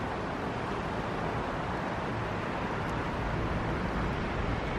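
Steady hiss of rain falling, with wind noise on the microphone.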